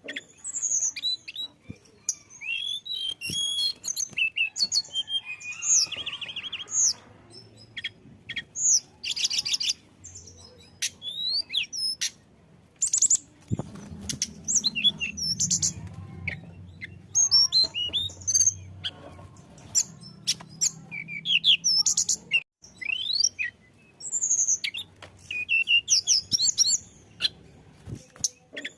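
Tledekan gunung songbird singing a long, varied song of rapid high chirps, quick trills and sweeping whistled notes, with hardly a pause. A low hum runs beneath the song for several seconds in the middle.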